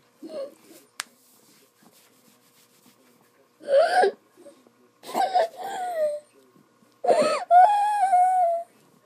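A girl having a seizure cries out in high-pitched whimpering moans, three bouts, the last held about a second and a half with its pitch falling at the end. There is one sharp click about a second in.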